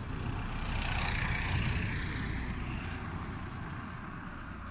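A passing vehicle: a steady rumble of engine noise that swells over the first couple of seconds and then slowly fades.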